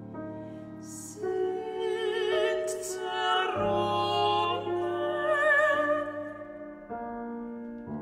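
Classical art song for soprano, mezzo-soprano and piano: operatic female singing with wide vibrato over piano chords. The piano plays alone for the first second or so and again near the end.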